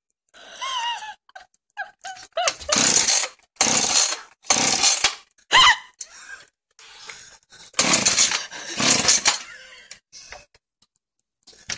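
A 52 cc Husqvarna chainsaw's recoil starter being pulled about six times in separate short yanks, the engine not catching: the saw won't start.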